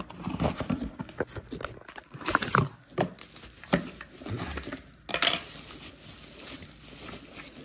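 Cardboard box being opened by hand, then plastic bubble wrap crinkling and rustling as an item is pulled out and unwrapped, with irregular clicks and crackles.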